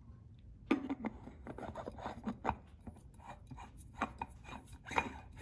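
A spin-on oil filter being screwed by hand onto the oil filter adapter of a Ford Cleveland engine block: irregular clicks, knocks and scraping that start about a second in.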